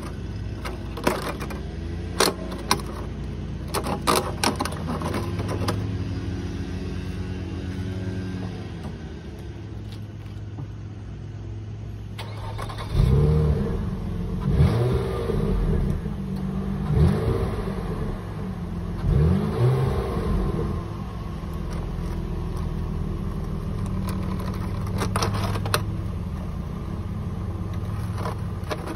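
Nissan Altima engine idling through a long aluminium duct pipe taped onto its tailpipe, with a few sharp knocks in the first seconds as the loose pipe is handled. About 13 s in the engine is revved in about five quick blips, rising and falling in pitch, then settles back to a steady idle.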